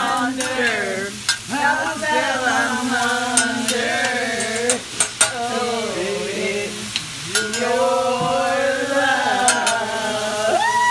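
A woman singing into a handheld microphone, long held notes that slide in pitch, over the steady sizzle of a hibachi griddle, with sharp clicks scattered throughout.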